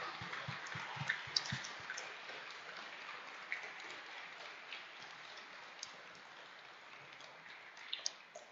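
Applause dying away, thinning to a soft hiss and scattered single claps, with a small cluster of claps near the end.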